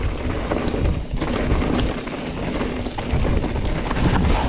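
Wind buffeting a helmet or body camera's microphone over the rumble and rattle of a mountain bike riding along a dirt trail.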